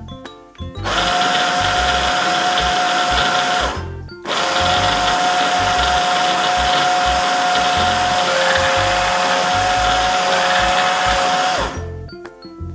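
Braun hand blender's motor running in its chopper bowl, chopping carrots and celery, with a steady whine. It runs for about three seconds, stops briefly, then runs about seven seconds more before cutting off.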